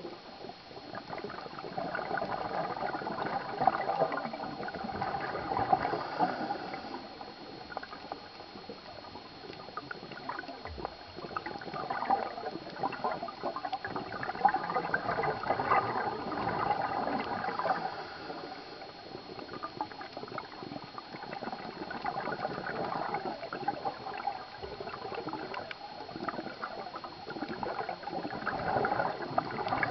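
Scuba regulator breathing heard underwater: the diver's exhaled air bubbles out in about four long gurgling bursts, with quieter stretches between breaths.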